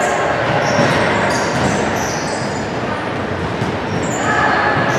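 Indoor basketball game noise in a reverberant sports hall: a steady din of players and onlookers, with sneakers giving several short, high squeaks on the wooden court.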